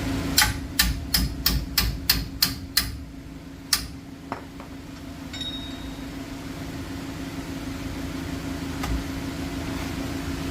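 Hammer blows on metal: a quick run of about eight sharp strikes, roughly three a second, then one more about a second later, as a stubborn brake part is knocked loose.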